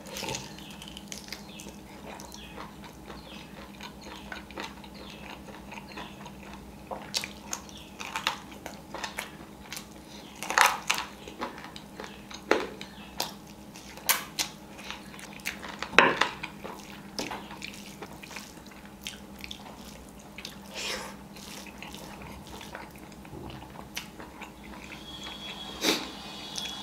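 Close-up chewing and biting sounds of a person eating chicken wings and biryani with the hands: scattered sharp smacks and crunches, sparse at first and more frequent from about seven seconds in, over a faint steady hum.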